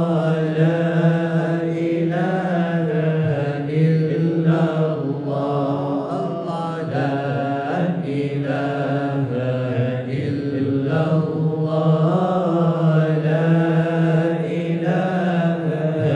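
Dhikr chanting: voices intoning devotional phrases together in long, sustained, melodic lines, one phrase flowing into the next.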